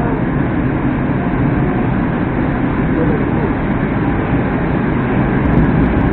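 Steady interior running noise of a Moskva-2019 metro train at speed in a tunnel: a continuous rumble of wheels on rail and running gear, with no breaks or changes.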